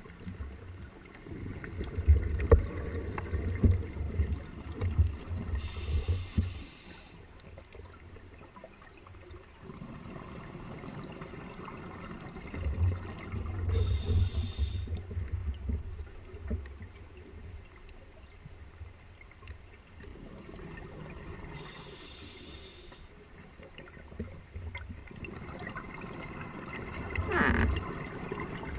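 Scuba diver breathing through a regulator underwater. Three short hisses of inhaled air come about eight seconds apart, and between them long bouts of low, bubbling rumble from the exhaled air.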